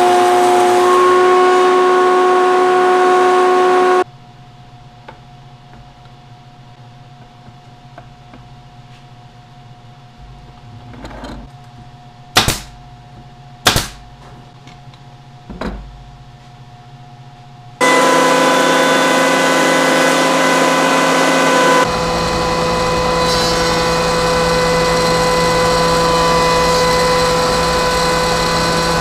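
Spindle shaper with a power feeder running steadily while a board is fed past the cutter, a loud machine whine with several held tones. About four seconds in it stops suddenly, giving way to quieter bench work with three or four sharp knocks. About eighteen seconds in, the shaper's steady running returns.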